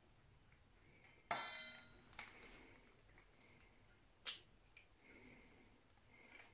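Eggs being cracked and separated over a stainless steel pot: a sharp knock with a brief metallic ring about a second in, then fainter clicks of eggshell and a second sharp click.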